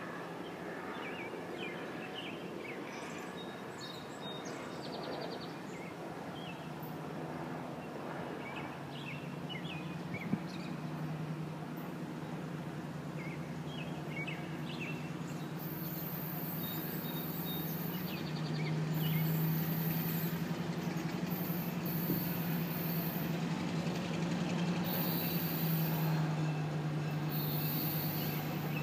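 Diesel freight locomotive approaching slowly, its engine drone growing steadily louder, with high-pitched wheel squeal coming and going in the second half. Birds chirp, and there is a single sharp knock about ten seconds in.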